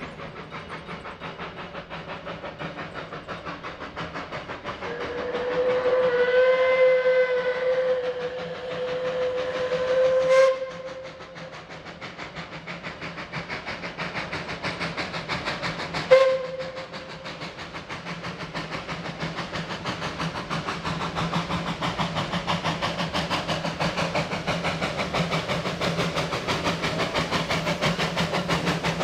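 Narrow-gauge NA-class steam tank locomotive approaching under steam, its exhaust chuffing in a steady rapid beat that grows louder as it nears. Its steam whistle gives one long blast of about five seconds, then a short toot about five seconds later, sounded for a road level crossing.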